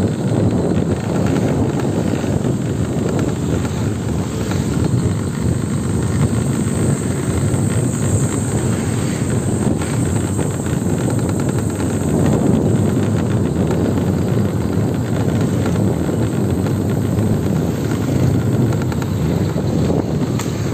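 Steady rumble of motorbike and car engines and road noise, running without a break.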